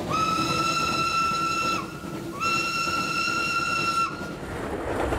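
Train locomotive whistle blown twice, two long steady blasts with a short break between, over the low running noise of the train.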